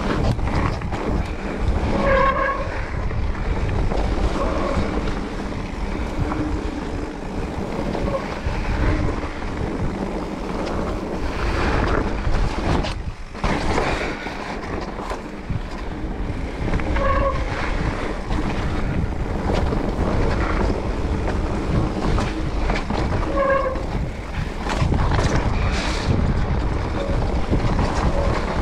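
Wind buffeting the camera microphone over the rumble of mountain-bike tyres on a wet gravel trail, with frequent knocks and rattles from the bike over bumps. Three brief squeaks come about two seconds in, near the middle and later on.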